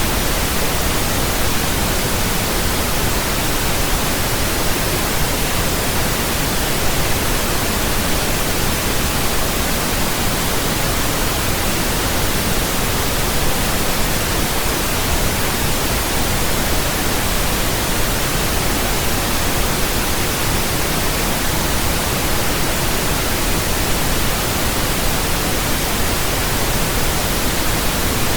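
Pink noise: a steady, even hiss spread across all pitches, deeper than white noise, without change.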